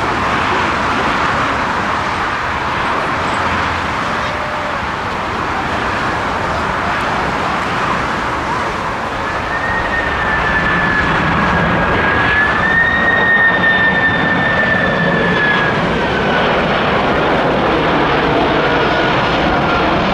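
Boeing 747-400F freighter on final approach, its four jet engines making a steady roar. About halfway through, a high engine whine comes in, holds for several seconds, then fades, while the roar grows slightly louder.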